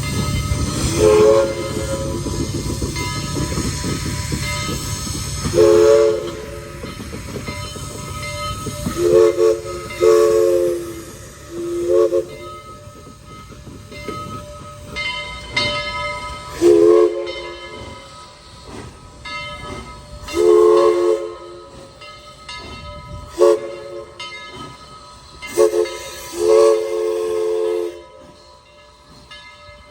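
Southern Railway 4501's Princeton three-chime steam whistle sounding a three-note chord in about ten short and longer blasts, the last one the longest. The locomotive's low running rumble sits under the first half.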